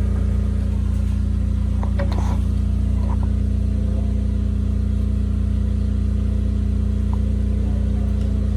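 Small portable generator engine running steadily under household load (fans, air conditioner, refrigerator), a constant low hum.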